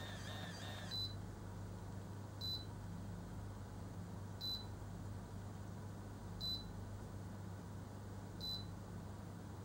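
Automatic rotating hair curler: its motor whirs for about the first second, drawing a lock of hair into the heated chamber, then stops. After that it gives short high beeps about every two seconds as its timer counts the curling time, over a low steady hum.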